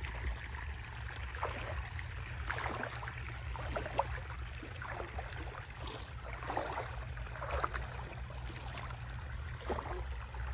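Water flowing and gurgling where it runs through a rice-field channel, with irregular splashy trickles over a steady low rumble.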